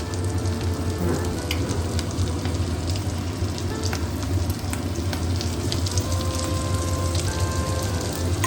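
Chopped garlic and slit green chillies sizzling in melted butter in a kadai, with a few light clicks of the stirring spoon.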